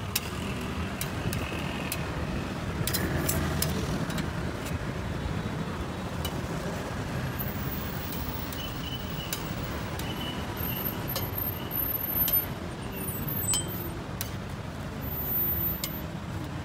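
Steady low rumble of street traffic, with scattered sharp clicks and clatter.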